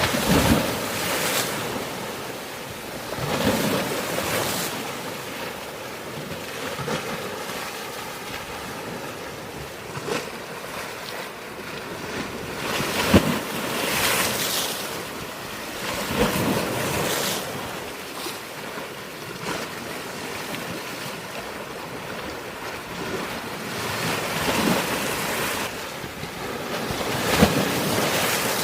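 Sea waves breaking and splashing on a rocky shore, one surge every three to four seconds over a steady wash of surf, with a sharp splash about 13 seconds in and another near the end. Wind noise on the microphone.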